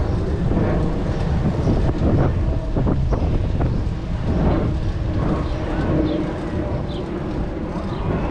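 Wind buffeting the microphone over a steady low rumble of outdoor traffic.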